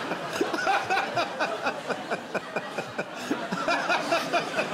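Studio audience laughing and chuckling.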